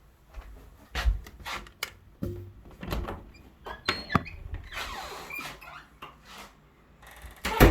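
Irregular knocks, clicks and clatter from a Whirlpool dishwasher being handled, with a brief high tone about four seconds in.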